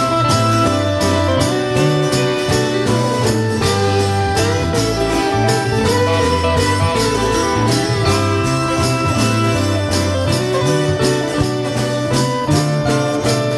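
Brass band playing: tubas or sousaphones carry a moving bass line under trumpets, with percussion keeping a steady beat.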